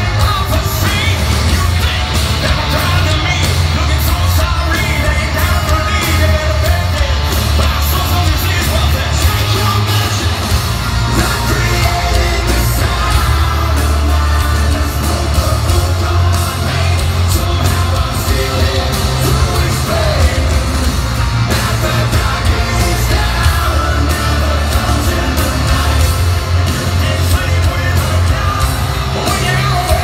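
Hard rock band playing live: a male singer shout-singing over heavy bass, drums and electric guitar, loud and unbroken, heard from the crowd.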